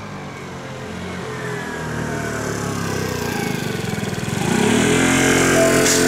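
Seibu 40000 series electric train pulling away and accelerating, its traction motors whining in several tones that climb in pitch as it gathers speed and grows louder. A steady high tone joins near the end.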